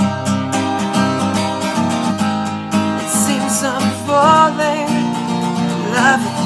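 Background music: a slow acoustic-guitar love song with steady strummed chords, and a wavering sung line without clear words in the second half.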